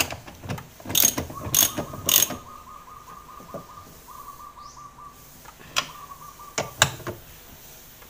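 Socket ratchet wrench tightening a bolt on a washing machine's motor bracket to lock in the drive belt tension: a long run of fast ratchet clicks, broken once, with several sharp metal clicks in the first two seconds and again near the end.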